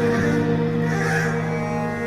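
Slow, dark background music of sustained low bowed strings, holding long notes that shift about a second in.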